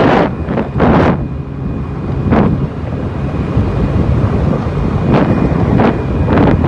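Heavy wind buffeting on a phone microphone riding on a TVS Jupiter scooter at around 85–90 km/h. It is a constant low rumble broken by irregular louder gusts. The scooter's engine is buried under the wind.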